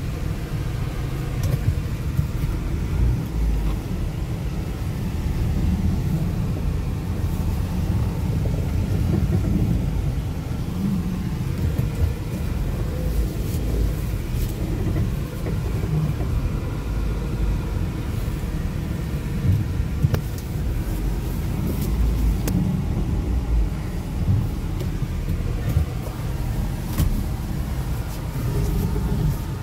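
Steady low rumble of a car driving slowly, heard inside the cabin: engine and tyre noise on the road.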